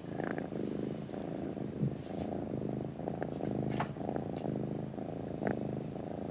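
Domestic cat purring steadily, a contented cat at rest, the purr swelling and easing with each breath about once a second.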